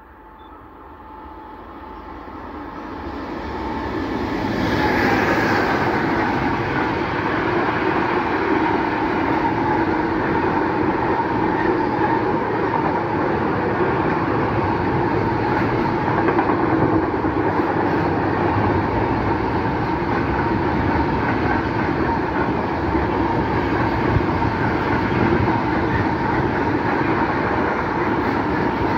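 Electric freight train passing close by. The E186 electric locomotive's noise builds over the first few seconds and is loudest as it goes by about five seconds in. After that comes the steady rolling noise of steel wheels on rail as a long string of intermodal container and swap-body wagons runs past.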